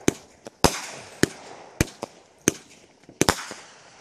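Fireworks going off: a run of sharp bangs, about seven in the four seconds and unevenly spaced, with a crackle between them.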